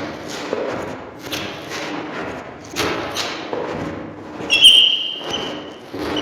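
Footsteps of hard shoes on a wooden floor, walking at a steady pace of about two steps a second. About four and a half seconds in, one step gives a short, sharp high squeak, the loudest sound here.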